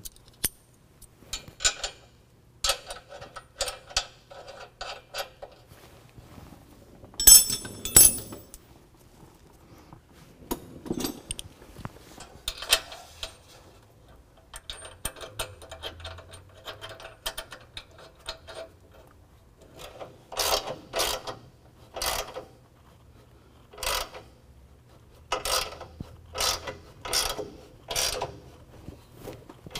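Hand ratchet clicking in short runs as bumper mounting bolts are run in and snugged from underneath the truck, with a louder clatter about seven seconds in.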